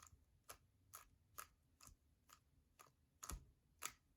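Rubik's cube being turned through an algorithm: faint plastic clicks of its layers snapping into place, about two a second, with a louder pair a little over three seconds in.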